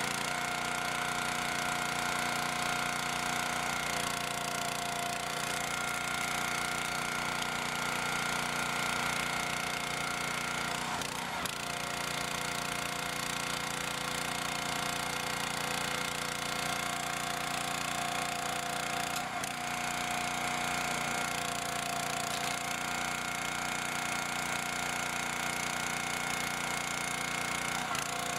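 Log splitter's 6.5 PS OHV single-cylinder petrol engine running steadily, driving the hydraulic pump, with a steady whine that shifts slightly in pitch several times as the splitting ram works. Two short, sharp knocks come about a third and two thirds of the way through.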